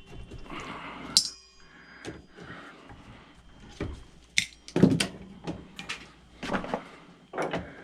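Clicks and clanks of small scrap metal pieces being snapped and handled. About a second in, a metal bowl is knocked and rings briefly like a bell.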